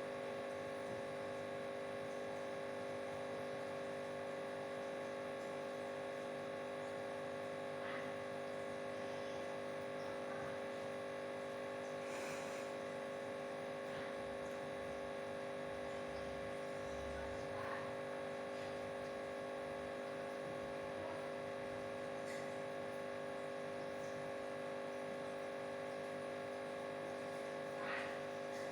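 Steady electrical hum made of several constant tones, with a few faint ticks scattered through it.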